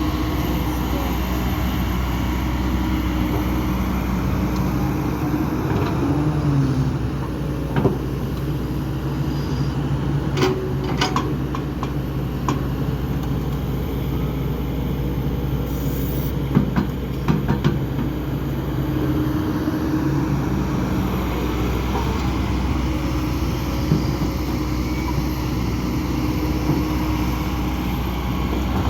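Kobelco SK210 HD excavator's diesel engine running steadily under work, its pitch shifting briefly about a fifth of the way in. Several sharp metallic clanks stand out, in a small cluster just past a third of the way in and another just past halfway.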